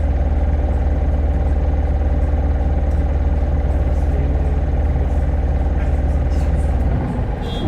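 Hino Blue Ribbon hybrid city bus (2SG-HL2ANBP) running with a steady low engine drone and a faint rattle; about seven seconds in the deep hum drops away and the sound changes.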